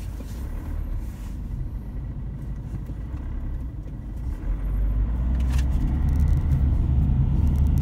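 Car engine and road rumble heard from inside the cabin, low and steady, growing louder about halfway through.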